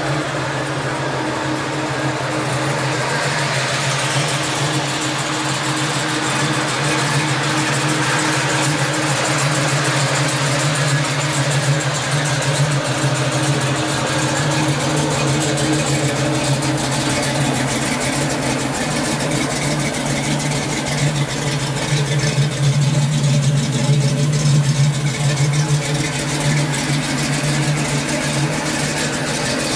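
Fuel-injected 396 big-block V8 of a 1970 Chevrolet Camaro idling steadily through a Flowmaster exhaust.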